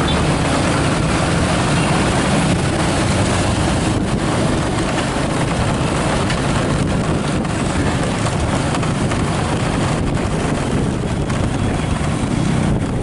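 Steady vehicle running noise with wind rushing over the microphone; no horn sounds.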